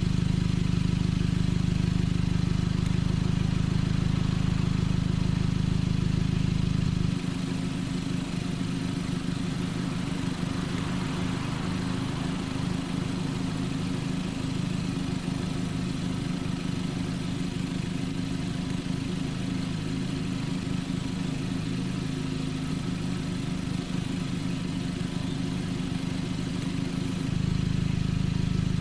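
BMW E30 engine running during a drive. About seven seconds in the sound drops a little quieter and the engine pitch wanders up and down, then it grows louder again just before the end.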